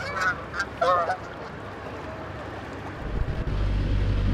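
Geese honking, several quick calls in the first second or so. About three seconds in, a low, steady engine drone comes in.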